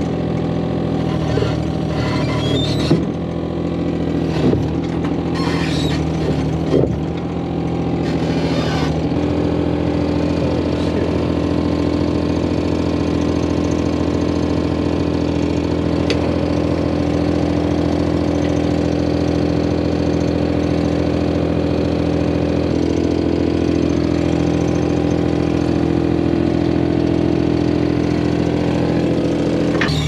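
Kubota KX41-3V mini excavator's diesel engine running under load, with knocks and rattles from the machine working during the first several seconds. After that it settles into a steady, even engine note, which steps up slightly in pitch about two-thirds of the way through.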